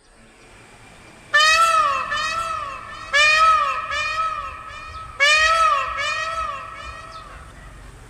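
Indian peafowl (peacock) calling: three loud calls about two seconds apart, each rising and falling in pitch and followed by one or two fainter, shorter repeats.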